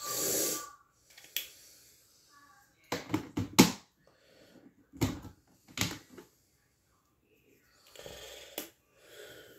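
Colored pencils and coloring things being handled on a wooden table: a rustle at the start, a quick cluster of sharp clicks about three seconds in, two light knocks a little later, and soft rustling near the end.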